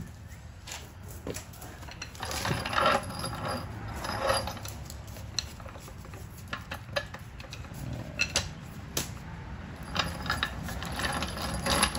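Irregular metallic clinks and mechanical clicks from a car jack and tools being handled while the car is raised at its pinch weld, with busier clattering about a third of the way in and again near the end.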